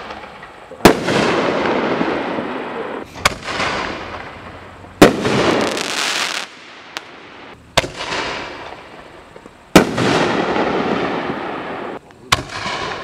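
Mad Ox Pro Ox 60-gram artillery shells fired one after another from a mortar tube. Each shell leaves the tube with a sharp thump and breaks about two seconds later in a loud bang, followed by a noisy tail of a couple of seconds. Three breaks and three launches alternate, about two and a half seconds apart.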